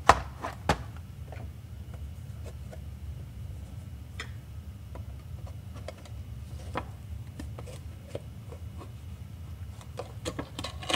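Scattered light clicks and taps of plastic packaging and a small model train car being handled and fitted back into its box, two sharper clicks at the start, over a steady low room hum.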